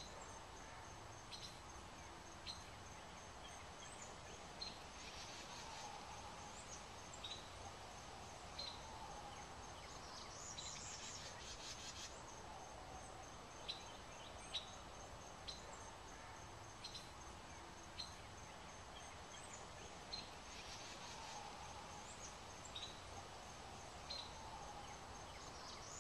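Faint outdoor garden ambience: distant birds calling, with short high chirps every second or two and a few brief trills.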